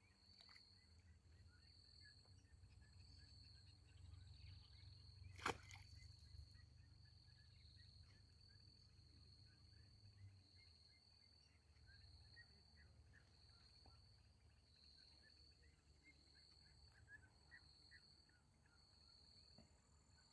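Near silence, with a faint insect trill pulsing steadily and one sharp click about five seconds in.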